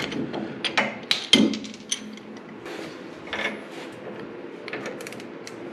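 Steel hand tools clinking and clicking as a socket on an extension is fitted and worked on a nut at the steering gearbox's pitman arm. There is a quick run of sharp clanks in the first two seconds and a few lighter clicks later.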